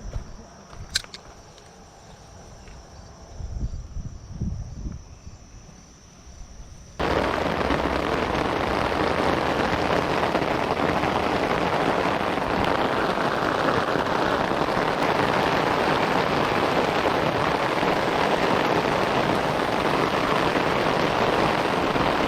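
Faint insect chirring with a sharp click and a few low rumbles, then, starting abruptly about seven seconds in, heavy rain pouring steadily and loudly.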